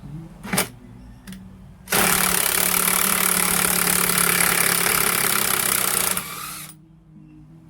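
Makita cordless impact driver running on a bolt for about four seconds, its hammering mechanism rattling steadily, then winding down. A short click comes just before it starts.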